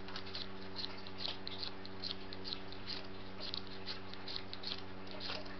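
Fire steel (ferrocerium rod) scraped repeatedly with a metal scraper, about three quick rasping strikes a second, striking sparks onto a wax-coated cotton fire-starter ball to light it. A steady low hum runs underneath.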